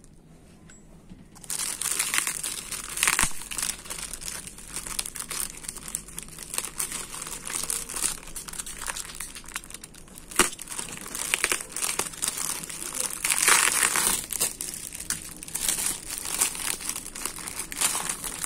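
Parcel packaging crinkling and tearing as it is worked open by hand, with a steady run of crackles and rips starting about a second and a half in. The packing is gum-taped on both sides and hard to open.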